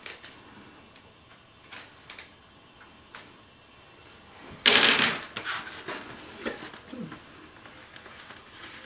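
Hands working tape and foam model-aircraft parts on a cutting mat: light clicks and rustles, with one louder scraping rustle about halfway through.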